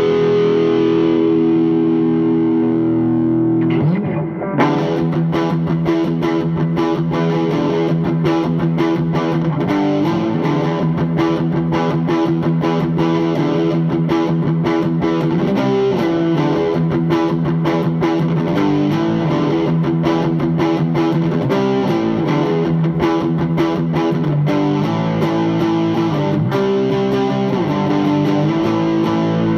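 Electric guitar played through the Thickener overdrive pedal into an Orange Super Crush 100 amp, distorted. A chord rings for about four seconds, then fast-picked riffing runs on with changing chords.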